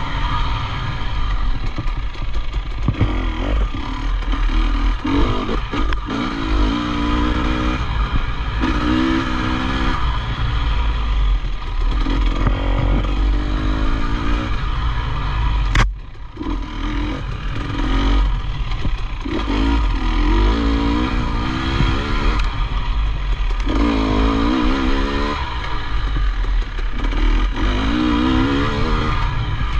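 Off-road motorcycle engine revving up and falling back over and over as the throttle is opened and closed, over a heavy low rumble. One sharp click comes about halfway through.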